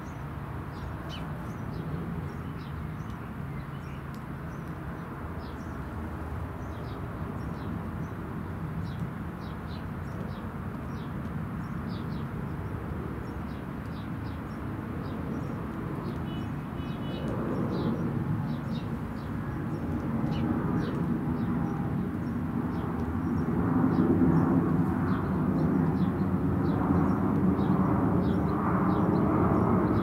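Outdoor ambience of a distant engine rumble that grows louder through the second half, with many short, high chirps from small birds throughout.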